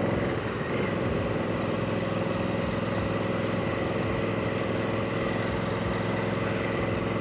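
Honda CRF1100L Africa Twin's parallel-twin engine running under way, its pitch dropping in the first second and then holding steady, with road and wind noise.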